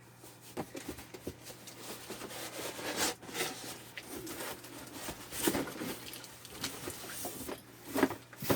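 Packaging being handled and opened: irregular rustling and crinkling with small knocks and clicks of parts being moved, the loudest crackles about three, five and a half and eight seconds in.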